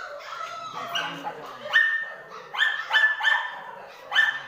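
Kintamani dog yapping: about six short, high-pitched barks in quick succession.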